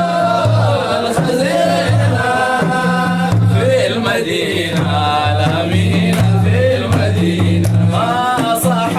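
Chanted Arabic religious singing of Sufi praise verses (madih) on the Hajj, a voice melismatically drawing out lines over a repeating low two-note accompaniment.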